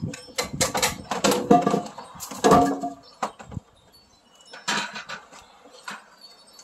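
Knocks and clatter of a freshly cut 4x4 lumber post and a circular saw being handled on plastic sawhorses. Busy for the first three seconds, then only a few scattered clicks.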